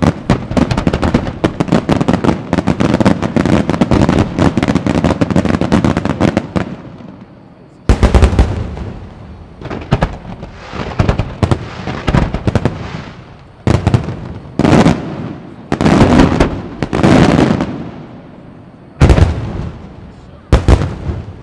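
Aerial fireworks display: a dense, rapid barrage of shell bursts and crackle for the first six seconds or so, which dies away. Then about seven separate loud booms of single shells bursting, each fading after it.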